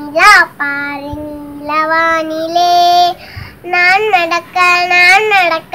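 A young girl singing a song solo without accompaniment: a loud swooping note just after the start, then long held notes with small pitch steps.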